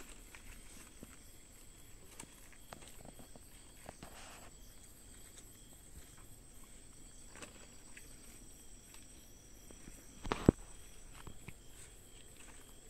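Night insects, crickets, trilling in one steady high tone, with scattered faint clicks and rustles from around dry palm fronds and a single sharp knock about ten and a half seconds in.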